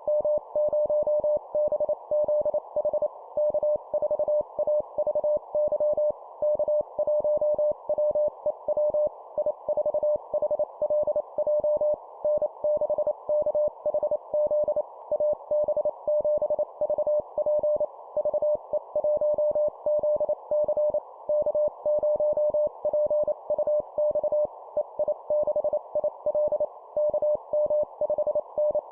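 Morse code (CW) at 25 words per minute: a single steady beep keyed rapidly on and off in dots and dashes over a constant band of hiss, spelling out amateur-radio call signs for copying practice.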